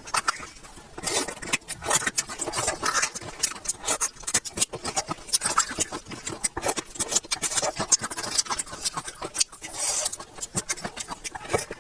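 A person chewing crispy food close to the microphone: a dense, irregular run of sharp crunches and mouth clicks.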